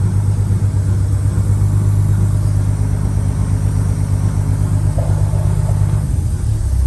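Turbocharged Detroit Diesel 6-71 two-stroke inline-six idling steadily shortly after a cold start, a loud low drone that shifts slightly about six seconds in.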